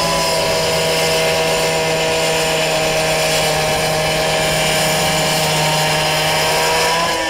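Two-stroke Stihl petrol cut-off saw running at full throttle, its blade cutting into asphalt to square out a pothole. A steady, high engine note is held throughout and sags slightly near the end.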